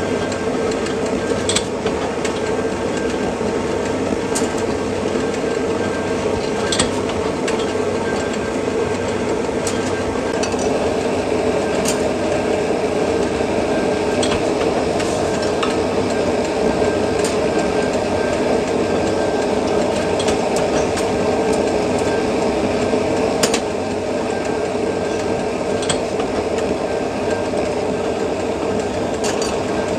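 Forging-press machinery running with a steady drone, with sharp metal clinks every few seconds as hot steel axle blanks are handled and forged.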